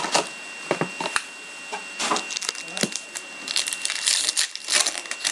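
A foil trading-card pack crinkling and tearing as it is opened by hand, with a few light taps and clicks of packs being handled in the first second.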